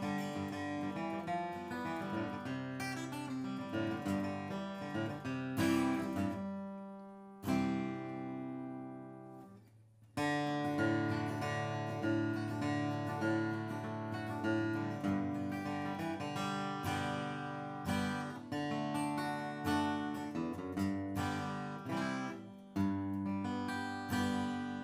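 Martin dreadnought acoustic guitar flatpicked, with strummed chords mixed with single-note runs. About seven seconds in a chord is left to ring and fade for a couple of seconds before the playing picks up again, and near the end another chord rings out.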